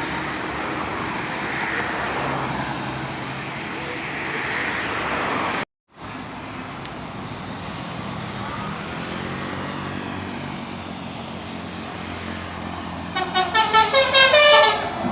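Tour bus engines and road noise running, broken by a brief cut about six seconds in. Near the end a bus's telolet basuri multi-tone horn plays a quick run of short notes for about two seconds, the loudest sound.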